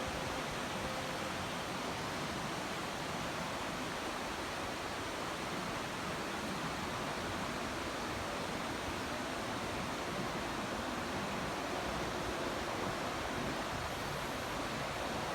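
River water rushing steadily past, an even, unbroken noise of flowing current.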